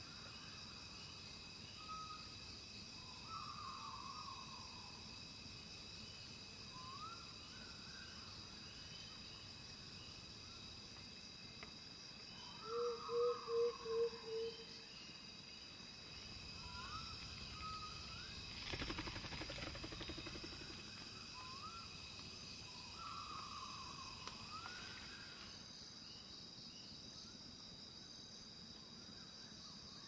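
Night forest ambience: a steady high insect chorus, with a short rising call repeated every few seconds. About 13 seconds in, a quick run of five low hoots is the loudest sound, and around 19 seconds a brief rushing noise passes.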